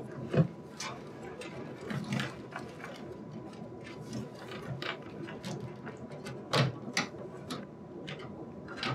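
Irregular clicks and knocks of plastic connectors and cables being handled and pressed into place in a computer case's top I/O panel, the sharpest about half a second in and again about two-thirds through, over a faint steady high tone.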